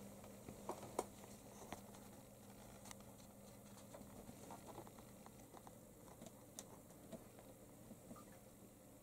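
Near silence with faint scattered clicks and soft rustles: a kitten's paws moving over papers, cables and cloth as it walks across a desk and climbs onto a shelf.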